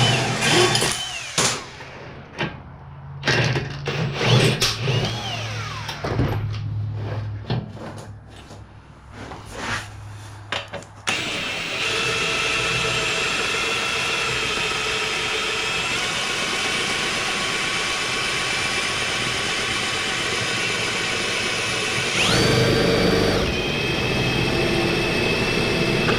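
A power drill runs in short bursts, each winding down in pitch, with knocks between them. It is spinning a part to work it loose and pull it out. After about 11 seconds it runs steadily, speeding up briefly near the end.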